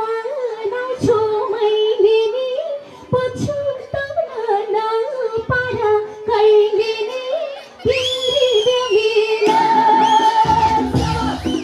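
A woman singing into a microphone over backing music with a steady drone, heard through a PA system. About eight seconds in, a high note slides in above the melody.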